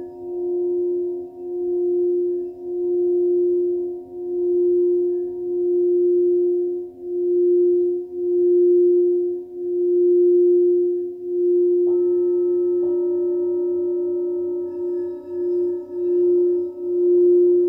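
Singing bowl sounding a sustained low tone that swells and fades about once every second and a half, the swells coming quicker near the end, as a bowl does when played around its rim. About twelve seconds in, two strikes a second apart on another bowl add higher ringing tones over it.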